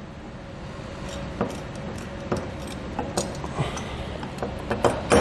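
Light metallic clicks and clinks, scattered and irregular, of a washer and lock nut being handled and threaded by hand onto an M8 bolt on a steel ladder-rack clamp bracket. A couple of sharper clicks come near the end.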